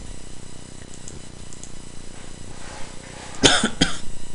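A person coughs twice in quick succession about three and a half seconds in, over a faint steady electrical hum.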